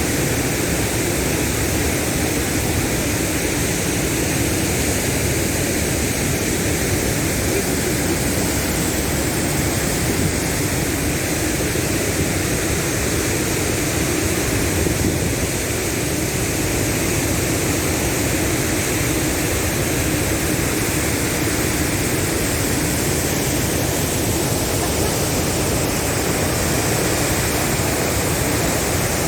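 A steady, loud rushing noise, even and unbroken, with no distinct events.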